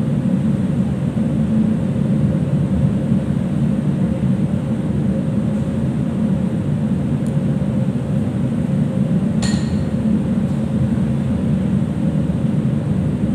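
Steady low drone of a ship's machinery and ventilation, with one sharp click about nine and a half seconds in.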